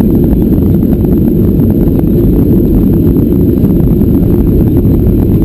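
Cabin noise of a Boeing 737-800 rolling down the runway just after landing: a loud, steady low rumble from its CFM56 engines and landing gear, with a fast irregular rattle on top.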